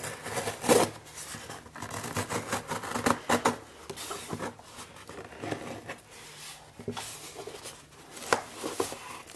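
Scissors blade cutting and scraping along packing tape on a cardboard box, a run of irregular scratches and rasps as the box is worked open.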